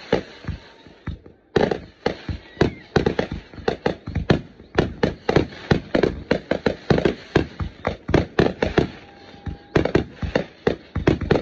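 Aerial fireworks going off in rapid succession, a dense string of sharp bangs and pops at about three or four a second, with a brief pause about a second in.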